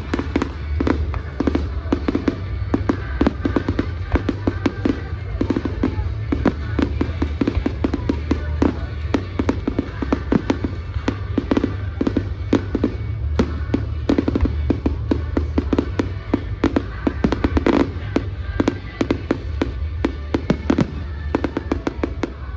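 A fireworks display: rapid, continuous bangs and crackles, many a second, with music playing underneath.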